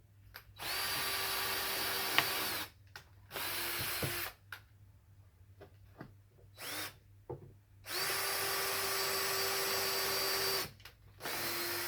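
Power drill pre-drilling holes through scrap melamine board in several runs of one to three seconds, each a steady motor whine, with short pauses between them. The last run spins down near the end.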